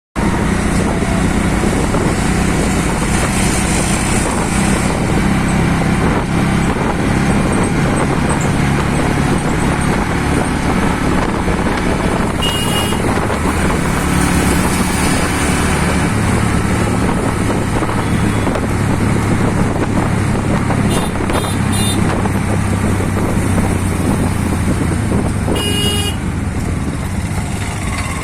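A motor engine running steadily throughout, with two short horn toots about thirteen seconds apart and a few faint short ones in between.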